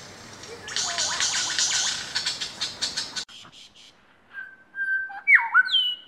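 Male superb lyrebird singing: a dense, scratchy, rapidly ticking chatter for about three seconds, then after a short pause a run of clear whistled notes that glide up and down.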